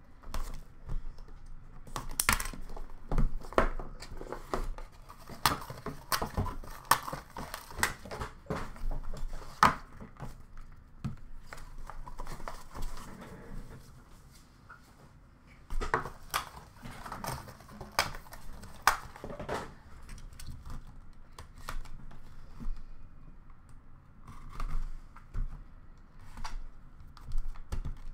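Hands unwrapping a sealed hockey card box: plastic shrink wrap slit and torn with crinkling, then the cardboard inner boxes pulled out and set down with many sharp taps and clicks.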